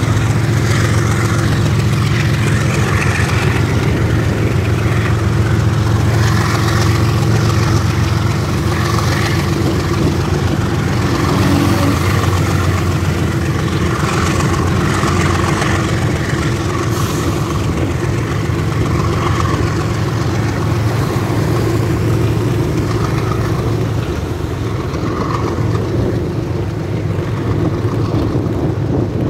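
Steady engine drone with wind rushing over the microphone, heard from a moving motorcycle. The bike's engine blends with the diesel locomotive of a freight train running alongside.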